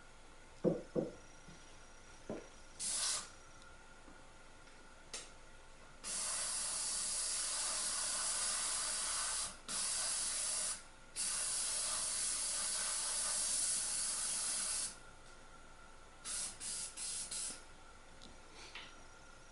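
Airbrush spraying paint through a homemade spatter cap (a screen over a cut caulking-tube tip), an airy hiss of compressed air. It comes first as two short bursts, then as a long spray of about nine seconds broken twice, then as a few quick short bursts near the end. Two small knocks come about a second in.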